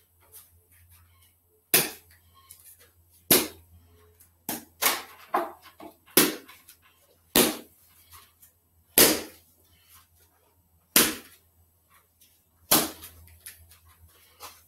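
About eight sharp, loud smacks at uneven intervals of one to two seconds, made by a person shadow-boxing with a boxing glove.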